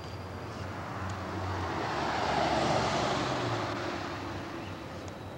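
Vehicle noise swelling to a peak about two and a half seconds in and then dying away, with a low hum underneath, as a vehicle passes.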